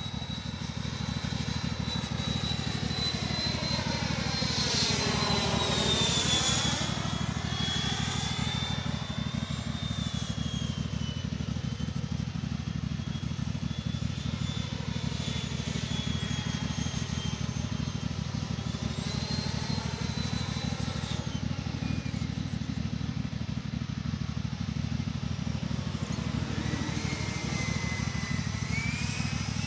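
The 120 mm electric ducted fan of an RC F-86 Sabre jet whines in flight as it passes overhead. The whine swells, and its pitch drops as it goes by about five seconds in, then it swells and dips again on later passes, over a steady low rumble.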